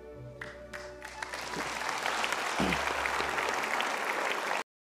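Large studio audience applauding: the clapping swells in about a second in over soft background music with held notes, stays loud, and cuts off abruptly near the end.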